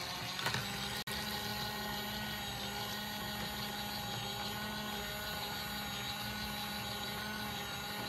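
Small electric motor of a mini washing machine for makeup sponges and brushes running steadily, churning water with a makeup brush in the drum. It cuts out for an instant about a second in.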